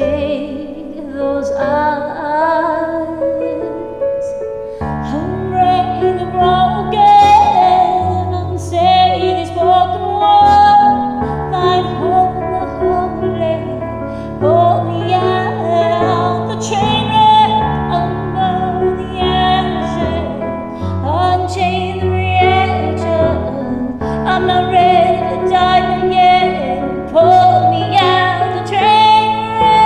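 A woman singing a pop ballad over a karaoke backing track, holding long notes that waver in pitch above steady low accompaniment.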